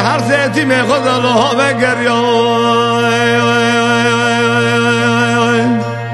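A solo voice sings a Kurdish remembrance song in a chant-like style. The melody is ornamented and wavering for about two seconds, then the voice holds one long note for about four seconds, over a steady low drone.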